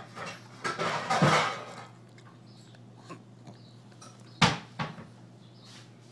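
Pug snuffling over and biting into a raw carrot: a burst of noisy snuffling about a second in, then a sharp crunch a little past four seconds with a smaller one just after.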